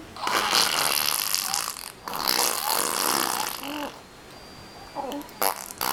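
A five-month-old baby blowing raspberries, buzzing air out through his lips: two long raspberries of nearly two seconds each, then a few short ones near the end.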